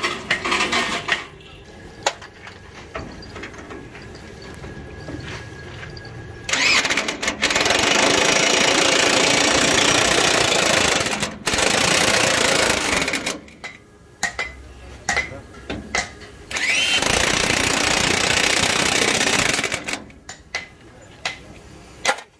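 Heavy corded electric drill boring into a steel truck chassis frame rail under load. It runs in two long spells of several seconds each, with short metallic knocks and clicks in between.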